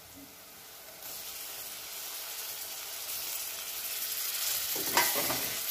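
Onion-and-spice masala sizzling in hot oil in a kadai. The hiss swells from about a second in as chopped tomatoes go into the pan, and there is a short knock near the end.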